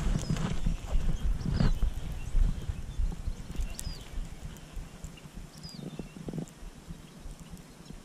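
Baitcasting reel being cranked on a swimbait retrieve, heard mostly as rhythmic low rubbing and knocking of sleeve and hands against a chest-mounted camera. The rumble is loudest in the first half and fades after about four seconds.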